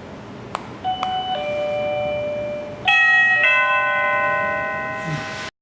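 Physen video doorbell chime ringing: two sharp clicks, then two ding-dong pairs of bell-like notes, the second pair louder. The chime rings on until it cuts off suddenly.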